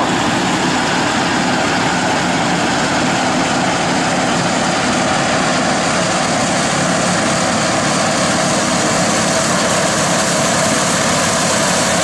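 An engine running steadily at an even speed, a continuous hum with no breaks.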